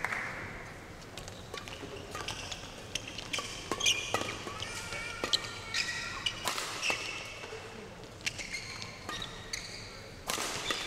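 Badminton doubles rally: rackets sharply striking the shuttlecock in a quick exchange, with shoe squeaks on the court floor, in a large echoing hall. A burst of crowd noise rises near the end as the rally ends.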